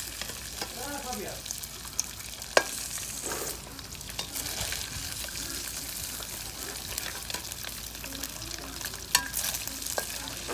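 Chicken pieces deep-frying in oil in a kadhai: a steady sizzle, broken by a few sharp clicks, the loudest about two and a half seconds in.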